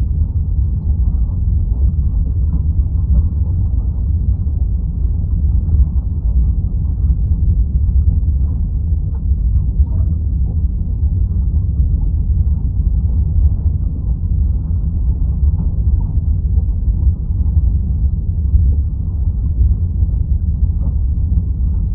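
Underwater ambience: a steady deep rumble with no distinct tones.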